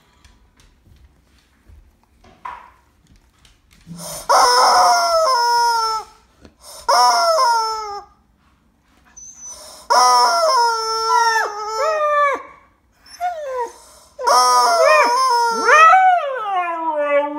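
A rubber chicken toy squeezed into long rasping squawks, four bouts, with a Siberian Husky howling and yowling along in pitches that bend up and down, most clearly in the last, longest bout.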